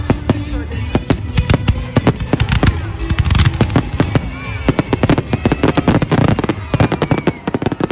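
Fireworks going off in a dense rapid barrage of bangs and crackles, many shells a second, stopping suddenly at the very end.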